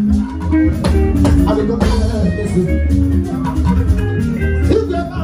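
Live band music: guitar and bass guitar lines over a steady drum beat.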